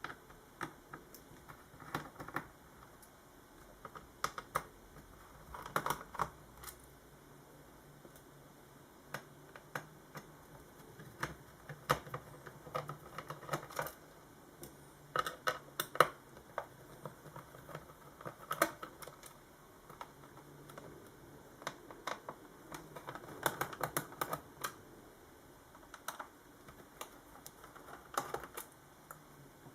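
Irregular clusters of small clicks and taps from a screwdriver undoing the screws of a Toshiba Satellite S55t laptop's plastic bottom cover.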